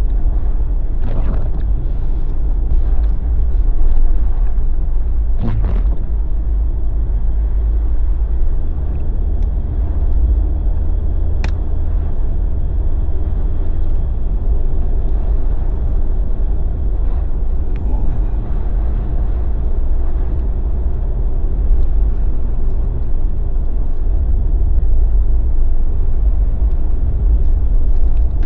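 Jeep driving on a snowy winter road: steady low engine and tyre rumble, with a few brief knocks, the first about a second in.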